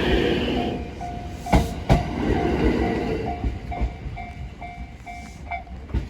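A Japanese level-crossing alarm sounding its repeated warning tone about twice a second while a train passes. The train's rumble and hiss die down about a second in, with sharp clacks from the wheels a little later and again near the end.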